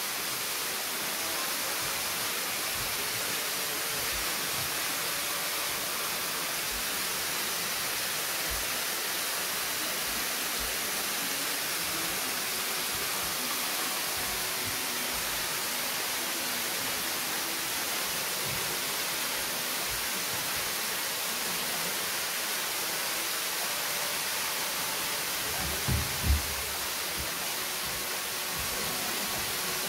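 Waterfall pouring down a rock face into a pool: a steady, even rush of falling water. Two brief low thumps come about 26 seconds in.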